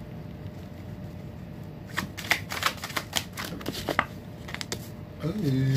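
A deck of tarot cards being shuffled by hand: a soft rustle at first, then a run of quick, crisp card snaps from about two seconds in. A short sung-out "ooh" from a man's voice comes right at the end.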